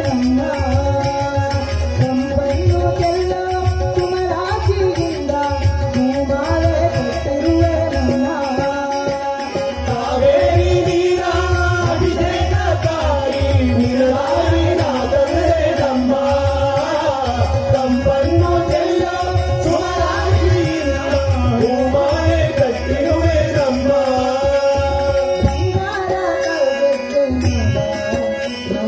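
Devotional bhajan sung live by a group of men to harmonium, tabla and small hand cymbals. The voices follow a winding melody over the harmonium's steady held tone, with the tabla and cymbals keeping the beat.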